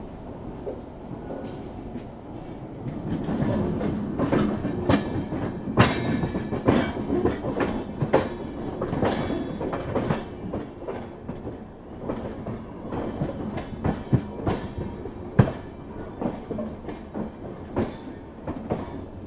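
Passenger-train coach wheels running over rail joints and points: a steady rumble with irregular sharp clacks, growing louder and busier about three seconds in as the coaches cross the yard's crossovers.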